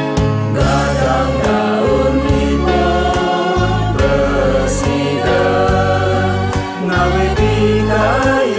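Elderly men's and women's choir singing a Balinese folk song over an instrumental backing with a prominent bass line.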